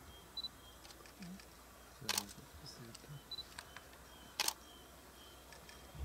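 Two camera shutter clicks about two seconds apart, with a few fainter clicks and faint short high peeps between them over a low steady hum.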